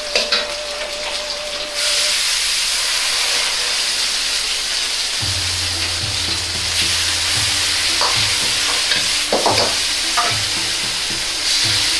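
Vegetables sizzling hard in a hot wok with Shaoxing wine and soy sauce, stirred with a metal ladle. The sizzle grows louder about two seconds in, and the ladle knocks against the wok a few times near the end.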